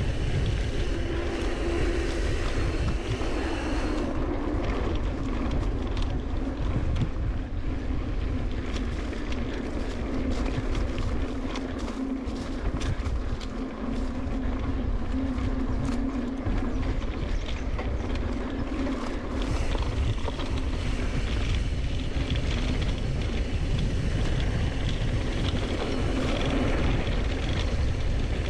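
Wind buffeting a chest-mounted action camera's microphone as a mountain bike rolls fast down dirt singletrack. Tyres run over the ground, and the bike rattles and clicks over bumps and rough patches, most busily in the middle stretch.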